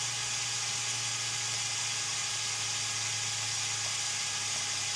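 LEGO Technic Mobile Crane MK II's Power Functions electric motor and gearing whirring steadily as the telescopic boom retracts.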